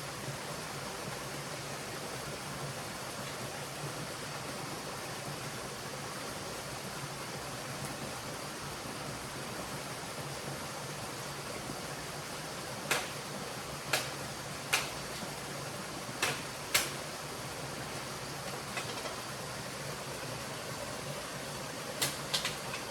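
Steady rush of a flowing stream, with a handful of sharp clicks or knocks in two clusters about halfway through and again near the end.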